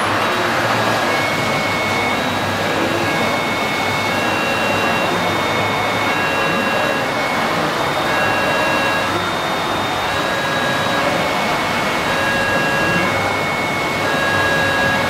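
Steady rushing hall noise, with a faint tune of high single notes stepping up and down throughout.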